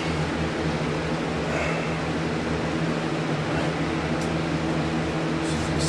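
Electric fan running steadily: a constant rush of air over a low motor hum, loud enough that it has to be turned down.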